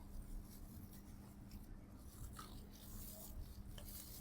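Faint eating sounds: quiet chewing and a few small clicks, over a steady low hum.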